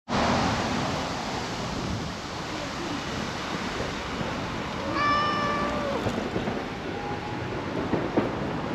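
A calico cat meowing once: a single drawn-out, level meow about five seconds in, lasting about a second, over a steady background hiss.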